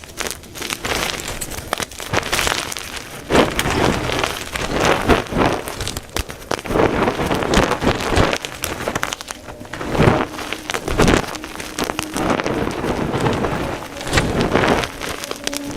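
Blocks of white gym chalk being crushed and crumbled, a dense run of crisp crunching and crackling with a few heavier crunches.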